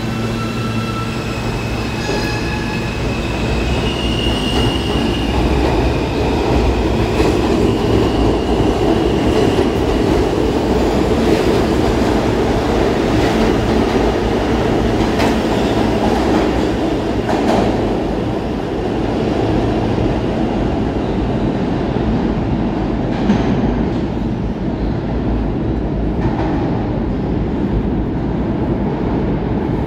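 New York City subway train running with a steady rumble. Several high wheel squeals sound over the first few seconds, and a few clacks of wheels over rail joints come later.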